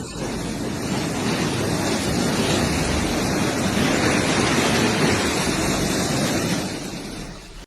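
A loud, steady rushing noise that builds to a peak midway and fades away near the end.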